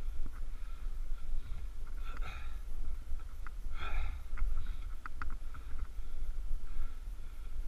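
Wind rumbling on the camera microphone while a cyclist breathes hard on a steep climb, with two louder breaths about two and four seconds in and a few sharp clicks just after five seconds.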